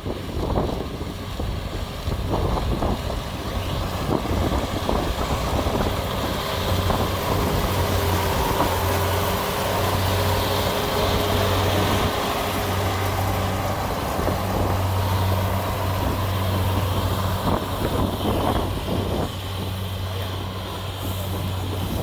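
Rice combine harvester running while cutting: a steady engine drone with a faint higher whine from the machinery through the middle.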